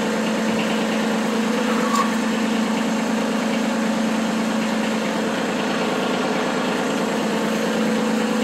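Kubota B2301 compact tractor's three-cylinder diesel engine idling steadily, with a light click about two seconds in.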